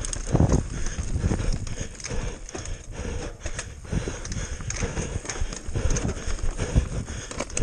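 Mountain bike descending a dirt forest trail at speed: tyre noise on the dirt with a continual uneven clatter and knocking from the bike over bumps and roots.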